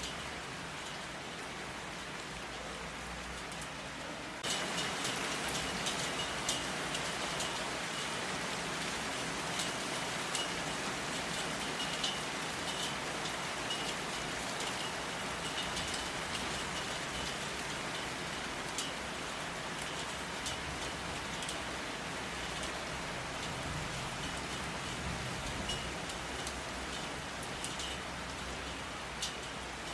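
Steady rain falling, with individual drops tapping through the hiss. About four and a half seconds in it suddenly gets louder and stays at the heavier level.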